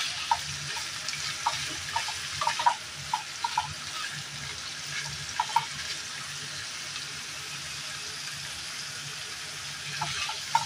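Boiled beef rib chunks sizzling in oil in a nonstick frying pan, sautéed with ginger and aromatics, with a wooden spatula clacking against the pan as they are stirred. The spatula knocks come in a cluster over the first few seconds and again near the end, with steadier sizzling between.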